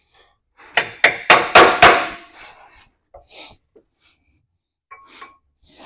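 A hammer driving bolts through the aligned bolt holes of a truck frame rail: about five quick, sharp blows of metal on metal about a second in. After them come a few fainter knocks and clinks.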